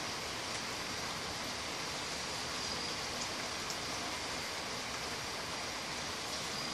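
Heavy rain pouring down, a steady hiss with a few faint ticks.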